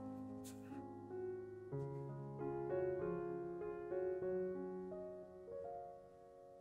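Background piano music, slow melodic notes with no speech over it.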